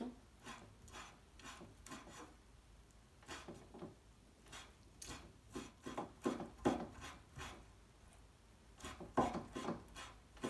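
Knife chopping raw beef finely on a wooden cutting board: runs of sharp knocks with short pauses between them.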